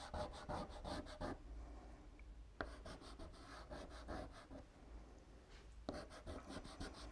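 Pastel being worked onto paper by hand: quick, scratchy back-and-forth strokes, about six a second, in three runs with short pauses between.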